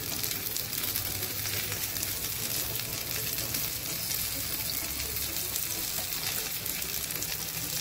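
Semolina-coated, green-masala-stuffed mackerel shallow-frying in hot oil on a tawa: a steady sizzle with fine, continuous crackling.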